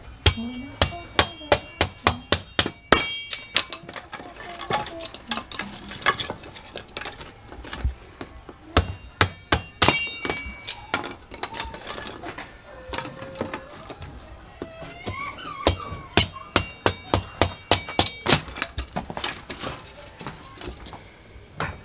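Hammering with a metallic ring: three runs of quick, evenly spaced blows at about four a second, separated by short pauses.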